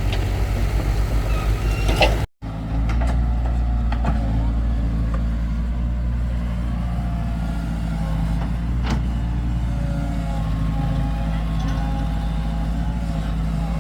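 Heavy excavator engine running steadily with a low drone, with a few sharp knocks over it, the clearest about nine seconds in. The sound cuts out for a moment about two seconds in.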